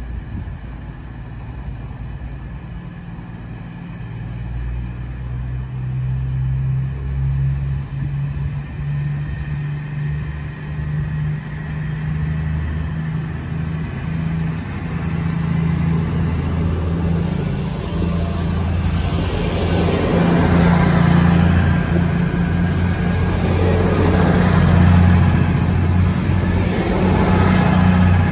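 East Midlands Railway Class 222 Meridian diesel multiple unit, its underfloor Cummins diesel engines humming steadily as the train draws in. The engine note grows louder, and in the second half a rising rush of wheel and rail noise joins it as the carriages move past close by.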